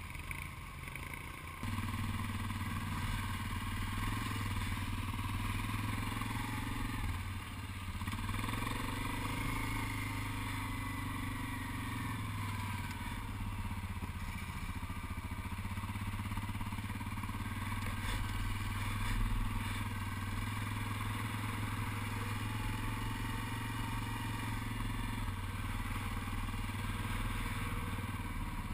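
An ATV's single engine runs throughout. Its note picks up sharply a couple of seconds in as the quad pulls away, then rises and falls in pitch with the throttle as it rides along at low speed.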